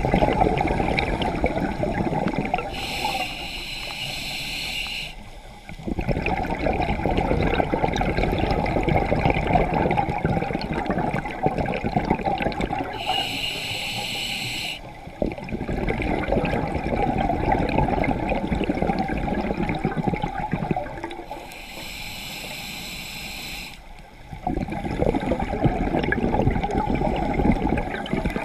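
Scuba diver breathing through a regulator underwater. Three short hissing inhales, each about two seconds long, alternate with longer bubbling exhales of several seconds.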